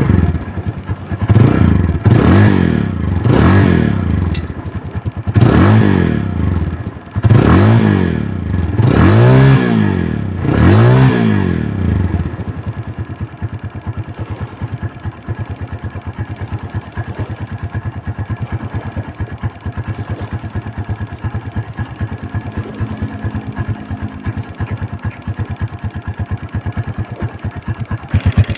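Kawasaki Barako motorcycle engine exhausting through a homemade muffler, revved in a string of about eight quick throttle blips, each rising and falling in pitch, for the first twelve seconds or so, then settling to a steady idle.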